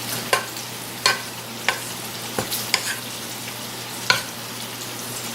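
Browned ground beef and sausage with tomatoes and cilantro sizzling in a pan as it is stirred, with the utensil knocking against the pan in sharp ticks every second or so.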